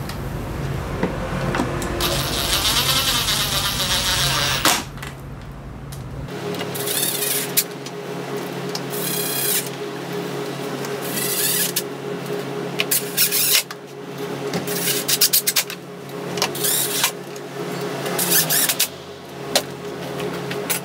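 A power tool whirring in short bursts of about a second, several times over, after a longer run near the start, over a steady mechanical hum.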